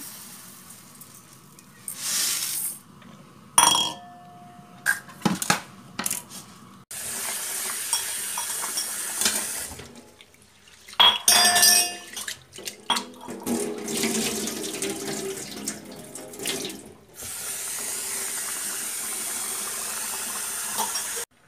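Basmati rice washed by hand in a steel bowl under a running kitchen tap in a steel sink: tap water running in steady stretches, grains swished and splashed in the bowl, and a few sharp clinks of the steel bowl. Near the start, rice poured from a plastic jar into the bowl.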